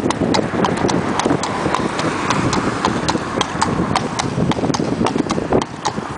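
Hooves of an Irish Draught cross Thoroughbred horse clip-clopping on a tarmac road at a walk, a steady run of sharp hoofbeats about three a second. Wind buffets the microphone underneath.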